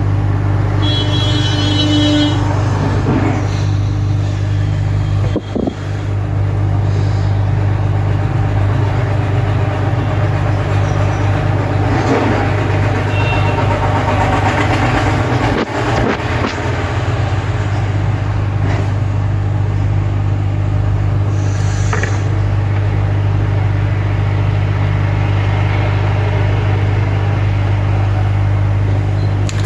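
A steady low hum with a few short clicks and taps.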